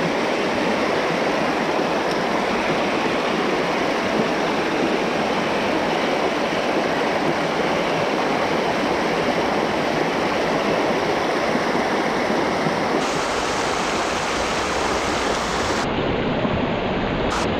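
Steady rush of river water, the river running high after a week of rain storms. The sound turns abruptly brighter and then duller in the last few seconds.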